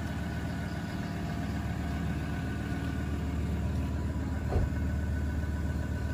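Car engine idling steadily, with a single short knock about four and a half seconds in.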